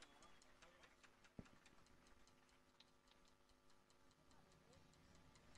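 Near silence with a faint, even ticking, about five ticks a second, over a low steady hum, and a single sharp click about one and a half seconds in.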